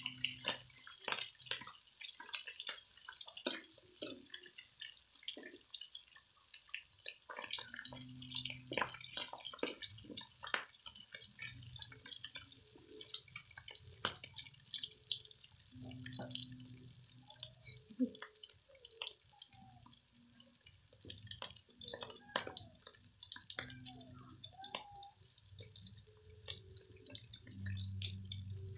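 Thinly sliced beef sirloin frying in oil in a metal wok, sizzling with a steady spitting crackle and many small irregular pops.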